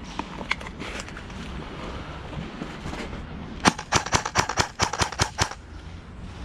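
Airsoft gun firing a rapid string of about a dozen sharp shots in under two seconds, starting a little over halfway through, with a couple of fainter shots earlier.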